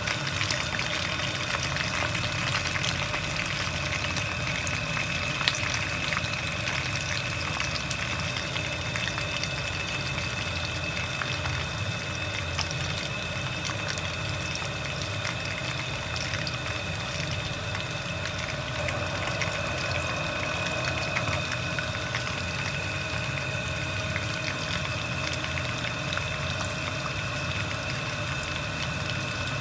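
Whole chicken deep-frying in hot oil in a wok: a steady sizzle with fine crackles and pops throughout. A faint steady hum of a few tones runs underneath.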